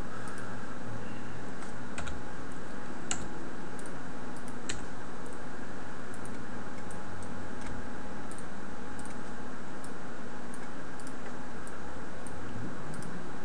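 Scattered clicks from a computer keyboard and mouse, a few sharper than the rest, over a steady background hum and hiss.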